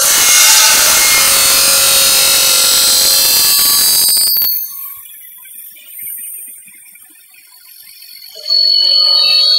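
A large circular saw blade on an aluminium profile machining centre cuts down through a hollow aluminium profile. The cutting is loud and hissing with high whining tones for about four and a half seconds, then drops away. Near the end it comes back loud as a steady ringing whine.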